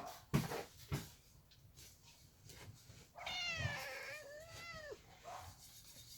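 A cat meowing once, in one long, drawn-out call that falls in pitch and then levels off, starting about three seconds in. Two short knocks come in the first second.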